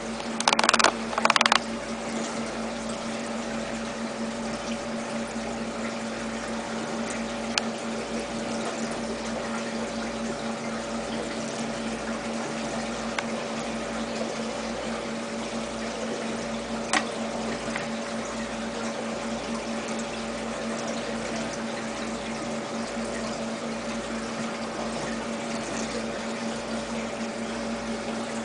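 Small water pump running steadily, with running water over a steady hum. Two brief loud noises come about a second in, and a few faint clicks follow later.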